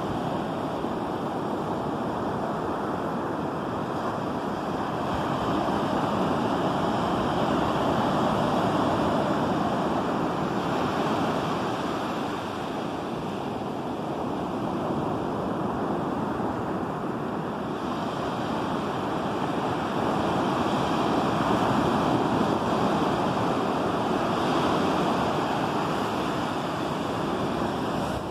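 Ocean surf breaking and washing up a sandy beach: a steady rushing of water that swells louder and eases back as the waves come in.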